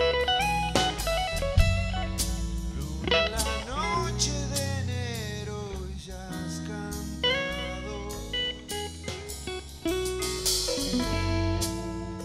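Rock band playing live: electric guitar lead lines with bent notes over bass guitar and drums, in an instrumental passage without singing.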